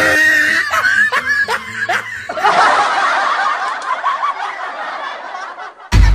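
Snickering laughter in short bursts, then a denser stretch of layered laughing from about two and a half seconds in. It cuts off suddenly near the end, where music with a deep bass starts.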